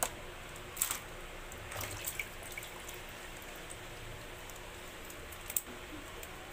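Scattered light clicks and taps with a few drips of water as raw crabs tied with string are handled and untied over a basin of water: one sharp tap at the start, a few around one to two seconds in, and one more near the end.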